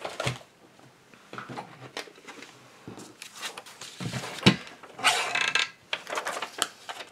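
Plastic paper trimmer being handled and set in place on a cutting mat: scattered clicks and knocks, the sharpest about four and a half seconds in, followed by a short rustle of a sheet of vellum.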